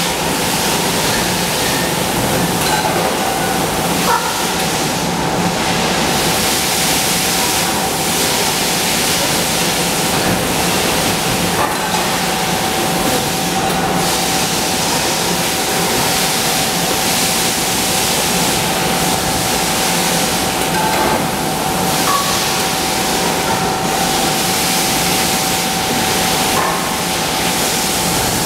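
Steady industrial machinery noise from an aluminum cookware production line: a continuous hiss and hum with a steady whine, and a few faint clicks and knocks now and then.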